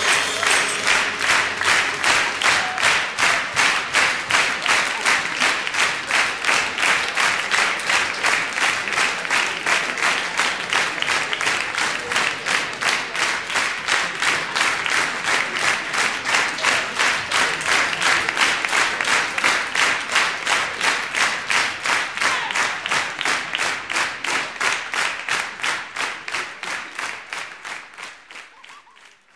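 Live audience applauding in unison: steady rhythmic clapping of about three claps a second, fading out over the last few seconds.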